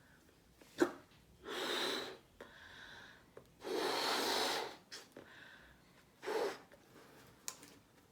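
Someone blowing hard into a rubber balloon to inflate it: two long puffs and a shorter one, with quieter breaths taken in between. A short sharp click comes just before the first puff.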